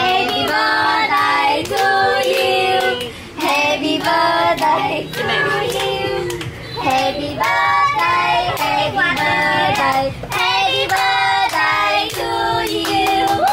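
A group led by children's voices singing a birthday song, with hand claps in time.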